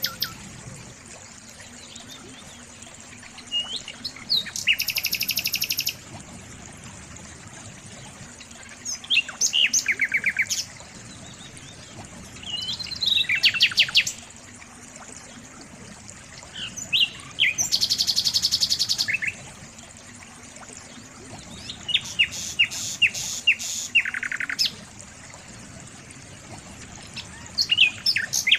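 A small songbird singing: short chirps followed by a fast trill of rapidly repeated notes, in separate phrases about every four seconds, over a faint steady hiss.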